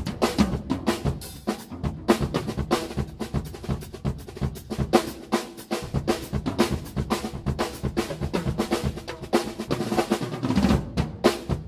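Large drum kit with Zildjian cymbals played fast: dense snare, tom and bass drum strikes with cymbal crashes, in busy fills and rolls.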